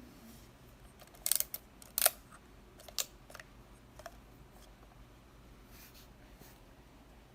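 Konica Auto S film camera being worked by hand: a series of short, sharp mechanical clicks, the loudest about two seconds in, then fainter ones trailing off.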